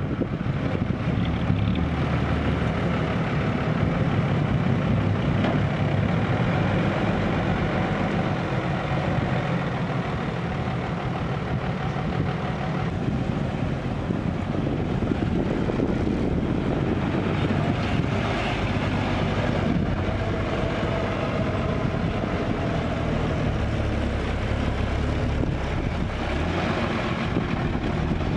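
Diesel engines of six-wheel Isuzu dump trucks running steadily at close range.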